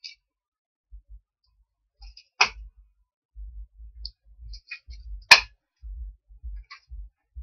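A large cardboard box being handled and worked open: two sharp knocks about three seconds apart, with a few light clicks and low thuds in between.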